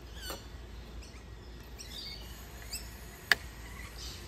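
A single sharp plastic click from a gate latch being pushed and tested, about three seconds in. Short, high bird chirps can be heard now and then.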